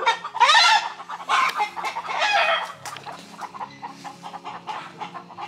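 Chickens calling from a tree: a loud rooster crow about half a second in, another long call around two seconds in, then quieter clucking.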